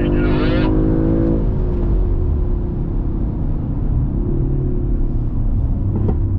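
Audi RS4 Avant's engine running on a track lap, holding steady revs, then easing off about a second and a half in, with a brief pick-up later, over a constant low road and tyre rumble.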